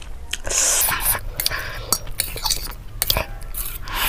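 Close-up eating sounds: a metal fork clicking and scraping against the dish while spicy noodles are picked up, slurped and chewed, with a louder slurp near the end.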